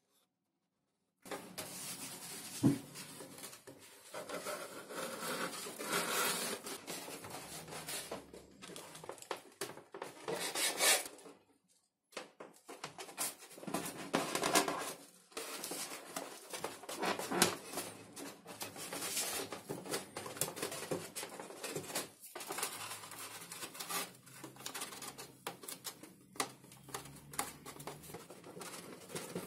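Hands rubbing, pressing and handling XPS foam (Depron) model-airplane parts, making irregular rubbing and scratching noises with occasional sharp clicks. It starts about a second in and pauses briefly twice.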